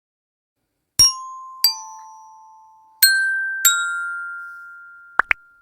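A bell-like chime jingle: four struck notes that ring out and fade, in two falling pairs with the second pair higher, followed by two short high blips near the end.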